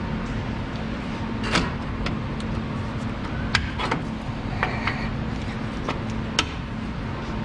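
Sharp metal clicks and clinks, about six, scattered unevenly, as a rear drum brake shoe and its spring hardware on a 2005 Chevy Silverado are worked into place with bent needle-nose pliers. A steady low hum runs underneath.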